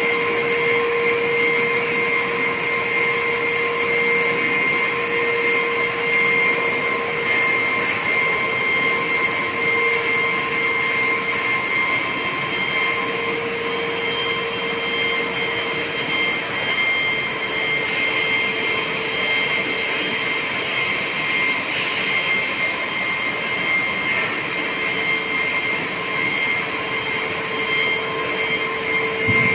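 SHXJ1800 CNC single wire saw cutting a stone block: the diamond wire runs steadily through the cut under water spray, a continuous hiss with a steady whine held at several pitches.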